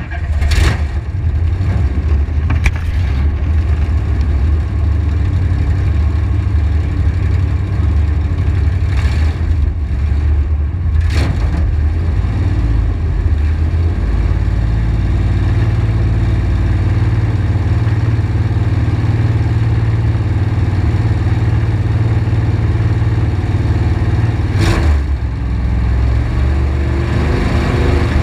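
A stock car's V8 racing engine comes up loud just at the start and then idles steadily with a deep, rough rumble while the car sits still, a few short sharp cracks breaking in now and then.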